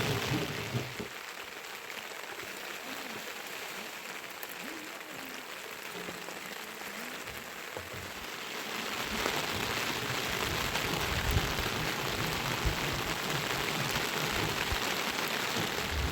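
Steady rain falling with an even hiss, growing louder about halfway through, with low rumbling underneath in the second half.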